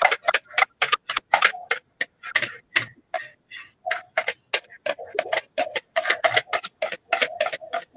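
Wire whisk scraping and tapping against a metal mesh sieve as flour batter is pushed through it into a steel bowl, a quick, uneven clicking several times a second.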